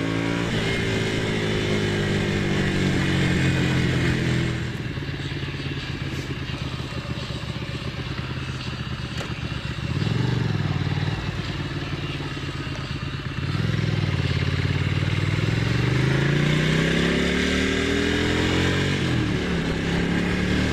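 Ducati Monster's L-twin engine on the road: it runs steadily, drops to a lumpy idle about four seconds in, gets a brief throttle blip near the middle, then revs up as the bike pulls away, easing off and climbing again near the end.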